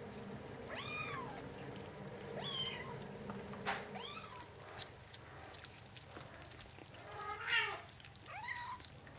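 Five-week-old Bengal kittens mewing: about five short, high-pitched mews, each rising and then falling in pitch, with a pause of a few seconds in the middle.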